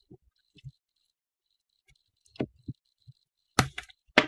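Scattered clicks and knocks of hands handling wire pins and a roll of black electrical tape on a table, with a few louder knocks in the second half.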